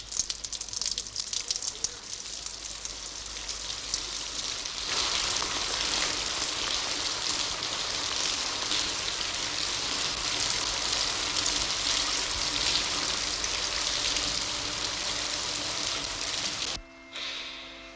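Rain: a patter of scattered drops that thickens about five seconds in into a steady dense hiss of rainfall. Near the end the rain cuts off abruptly and a few steady held tones come in.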